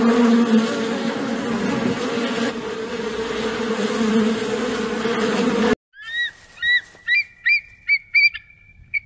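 A flying insect buzzing loudly and steadily, cutting off abruptly near the middle. Then a bald eagle's call: about seven short, high piping chirps that come faster toward the end and finish in a brief held whistle.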